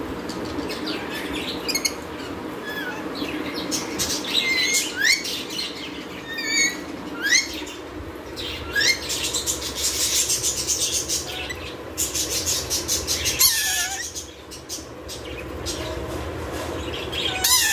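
Caged lorikeets giving short, sharp upward squeaks, several in a row, with a fast stretch of wing flapping and rustling about ten seconds in and a wavering, falling call shortly after.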